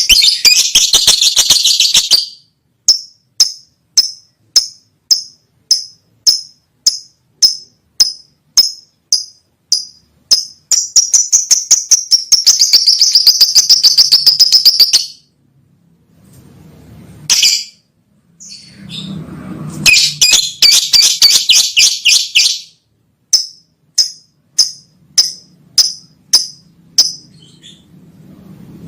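Lovebirds chirping loudly: bursts of rapid, high-pitched chattering alternate with runs of single sharp chirps at about two a second, with a short pause about halfway through.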